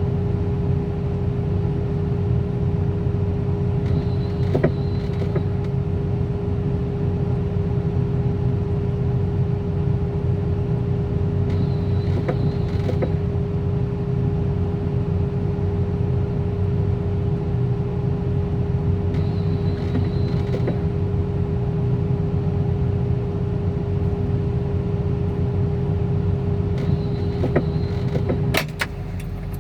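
An engine idling steadily with a constant low hum, with faint short high chirps every seven or eight seconds and a few sharp clicks near the end.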